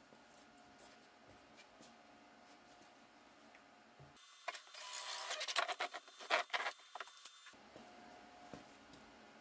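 Cordless drill boring a hole through the wall of a plastic trash can, running in short bursts for about three seconds from about four seconds in.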